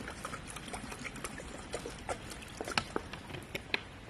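Water trickling and dribbling into a pot of rice, with irregular small splashes and drips.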